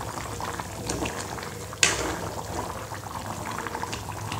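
Thick egg curry boiling in a kadai, its bubbles popping and plopping steadily. A single sharp clack about two seconds in.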